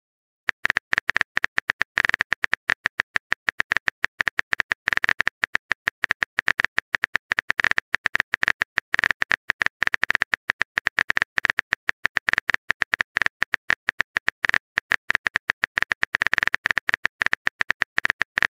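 Texting-app keyboard typing sound effect: a rapid, unbroken string of short clicks, many a second, starting about half a second in, as a long message is typed out.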